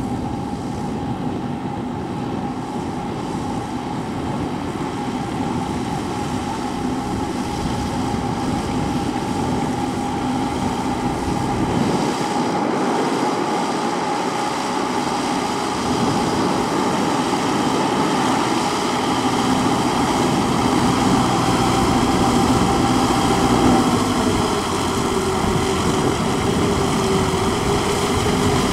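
Four-cylinder diesel engine of a riding rotary paddy tiller running steadily under load as it tills a flooded rice field, growing gradually louder. The engine note shifts slightly about three-quarters of the way through.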